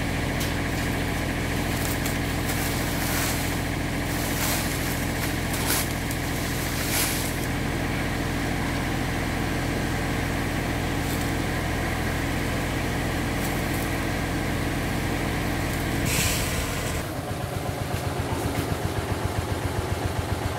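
Diesel machinery engine running steadily, with a few short scrapes of a rake on the ground in the first seven seconds. About seventeen seconds in, after a brief hiss, the sound changes to a diesel engine idling with an even, slow chug.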